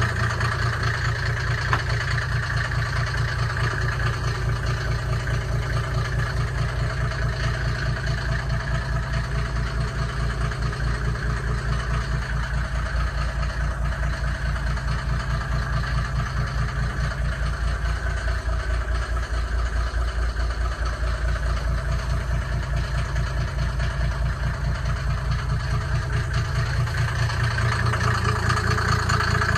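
Mercedes G W460 300 TD turbodiesel engine idling steadily, an even, rapid low pulse.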